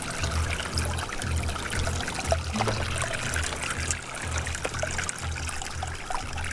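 Small mountain waterfall: water trickling and splashing steadily.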